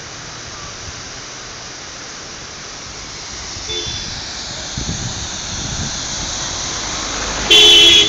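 Steady rush of a waterfall, growing louder about halfway through. A vehicle horn gives a short toot near the middle and a louder half-second honk near the end.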